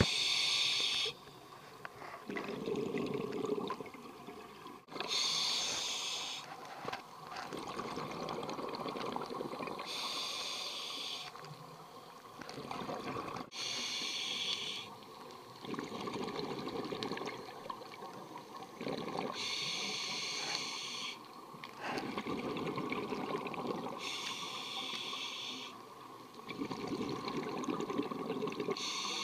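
Scuba diver breathing through a regulator underwater: a hissing inhale through the demand valve, then a bubbling exhale, repeating about six times at one breath every four to five seconds.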